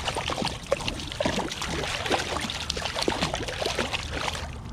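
A hooked coho salmon thrashing at the surface against a kayak's side, splashing water in quick, irregular slaps. The splashing stops suddenly near the end.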